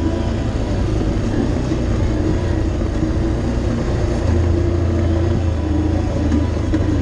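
ATV engine running steadily while the quad travels along a dirt trail, a continuous low drone.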